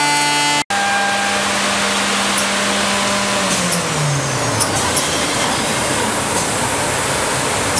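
CNC wood machining centre running with a steady hiss of dust extraction; the router spindle's whine holds one pitch, then falls away about three and a half seconds in as the spindle spins down.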